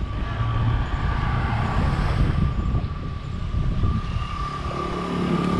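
Road noise from vehicles on a freeway: a dense low rumble with a steady high whine over it.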